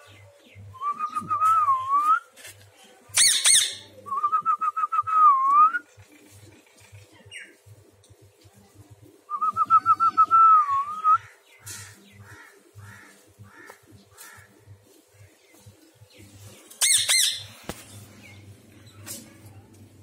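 Pet parakeet giving two loud harsh squawks, about three seconds in and again near the end. In between come three bursts of a fast warbling trill that dips and rises in pitch.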